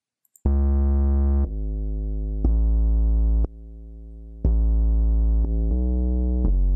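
Synthesized bass sound playing a run of sustained notes of different pitches, starting about half a second in, each held about a second. Most are loud, one is a little quieter and one near the middle is much quieter: the bass file is played through a compressor with about 7 dB of output gain, its dynamics only partly evened out.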